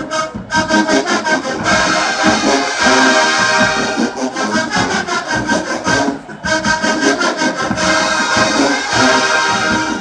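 Marching band playing in the stands: brass with drums beating a steady rhythm, with a short break about six seconds in.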